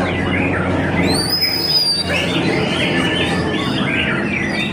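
White-rumped shama (murai batu) calling in a run of quick chattering and chirping notes, with a clear rising whistled note about a second in. Its chatter is the call that bird keepers hear as the bird 'laughing'.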